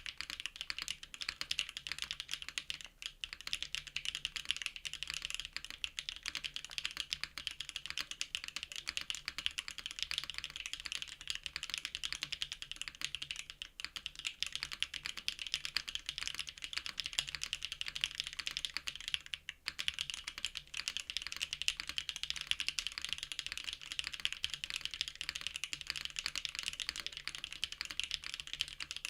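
Fast, continuous typing on a JRIS65 R2 custom mechanical keyboard fitted with BSUN x Keynetix Candy Vanilla linear switches: a dense stream of keystroke clacks, broken by a few brief pauses.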